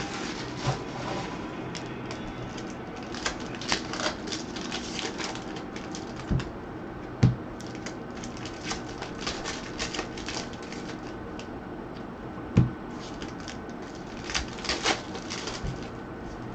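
Irregular light clicks and taps from something being handled, with a few dull knocks, the strongest about seven and twelve and a half seconds in.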